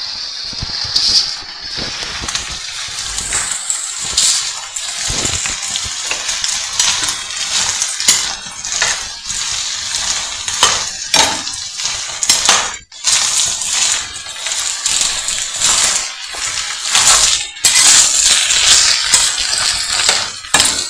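Chopped nopales cooking in a clay pot, stirred with a spoon: repeated scrapes and knocks of the spoon against the pot over a steady hiss of sizzling.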